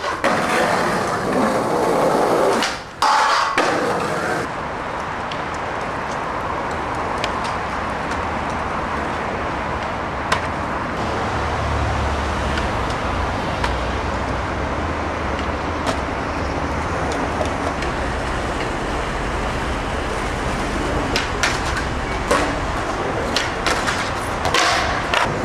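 Skateboarding on concrete and rails: wheels rolling and grinding, with several sharp clacks of the board popping and landing, most of them near the end, over steady traffic noise.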